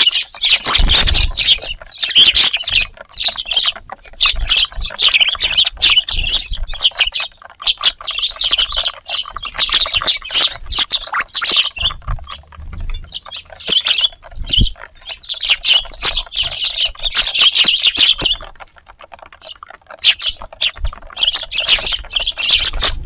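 A flock of Eurasian tree sparrows chirping busily over one another, in loud bursts with a couple of brief lulls.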